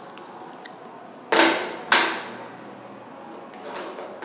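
Two sharp knocks about half a second apart, each with a short ring-out, then a few faint handling sounds.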